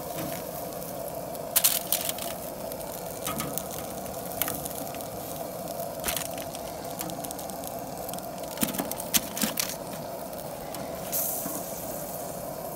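Metal tongs clacking against a charcoal grill's grate and crinkling a foil-lined pan as chicken quarters are lifted off, a handful of sharp clicks scattered through. A steady drone runs underneath.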